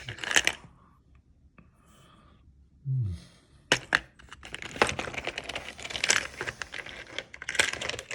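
Plastic packaging crinkling and rustling while small hard accessory parts click and clatter, a few separate clicks at first, then a busy stretch of crackling handling from about halfway through.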